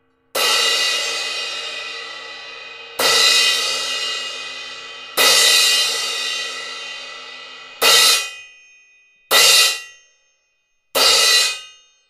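A 16-inch Sabian AA Rock Crash cymbal, its crack repaired, struck with a stick six times. The first three crashes ring and fade slowly. The last three are cut off quickly, within about a second of each hit.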